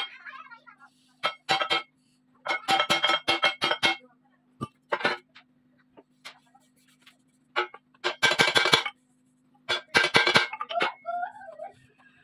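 Hammer blows on a steel-hammer-struck fishing boat propeller blade, each strike ringing like metal, coming in runs of several quick blows with pauses between. The blades are being hammered back into line to correct a wrong pitch setting that made the propeller vibrate at low revs. A faint steady hum sits underneath.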